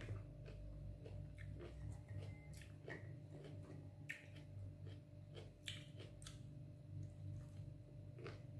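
A person eating by hand: chewing with mouth smacks, and soft tearing and clicking as grilled chicken and flatbread are pulled apart, in many short scattered sounds over a steady low hum.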